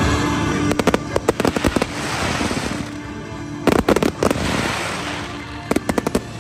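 Fireworks going off in rapid crackling clusters, three bursts of quick cracks about a second each, over a steady music bed.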